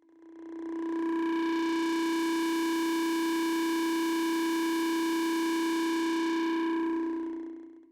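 The 'bonk' meme sound effect stacked a million times over, so the repeats merge into one steady, unbroken tone. It swells in over about a second and fades out near the end.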